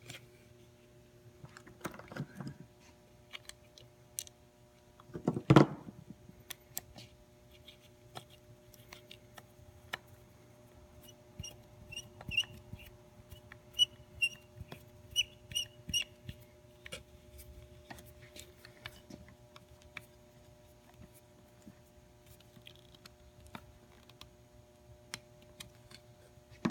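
Hands working the compressor's black plastic cooling fan and drive belt back onto the pulley: scattered light clicks and knocks, one thump about five and a half seconds in, and a run of short high squeaks between about eleven and sixteen seconds as the fan and belt are turned. A faint steady hum runs underneath.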